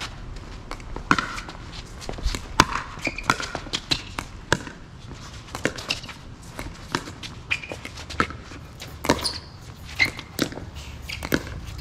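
Pickleball rally: paddles striking the hard plastic ball over and over, a sharp pop about once or twice a second, with the ball bouncing on the court in between.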